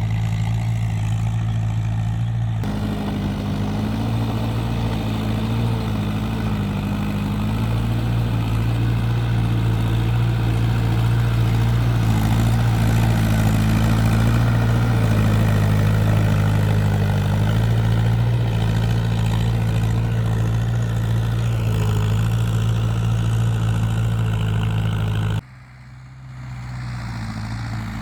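International Harvester 276 tractor's diesel engine running steadily while rotary ploughing, a low even hum with rougher noise over it. Near the end the sound drops away suddenly and comes back quieter.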